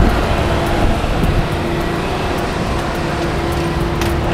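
Loud, steady drone of airliner and ground-support machinery on an airport apron, with a constant whine running through it. A few sharp clacks near the end come from footsteps on the metal boarding stairs.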